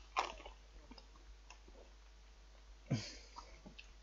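Mostly quiet room with faint handling noises: a short rustle at the start, a few small clicks, and a brief thump about three seconds in.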